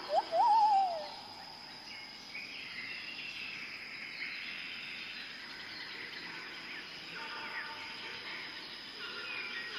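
Tropical rainforest ambience. A loud whistled bird call in the first second rises quickly, then wavers and slides down. Behind it runs a steady high insect drone and a chorus of many fainter bird calls.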